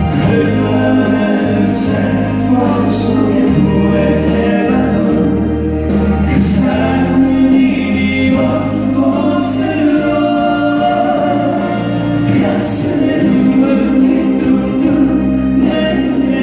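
A song performed live: singing over amplified backing music with a steady bass line.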